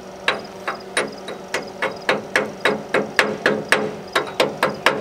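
Sharp metallic strikes on steel, each ringing briefly: a couple in the first second, then a steady run of about four a second that quickens toward the end.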